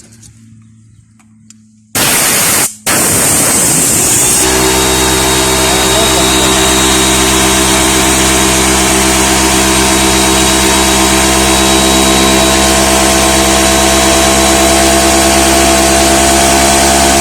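Compressed air blasting out of an Einhell 6-litre oil-free compressor with the regulator knob turned to maximum: a loud hiss starts about two seconds in and breaks off briefly. About four and a half seconds in, the compressor's motor cuts in and runs steadily under the hiss, a steady hum with a thin high whine, as the falling tank pressure triggers the auto-start.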